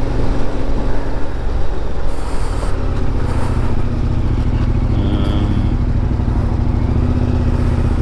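Motorcycle engine running steadily while riding, heard from the rider's own bike, with wind rushing over the microphone.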